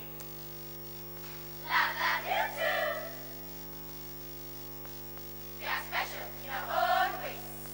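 A girls' choir singing two short phrases in unison, the second about three seconds after the first. A steady electrical hum lies under the voices throughout.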